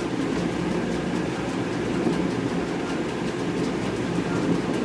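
Steady hum and rushing noise of a running fan, holding even throughout.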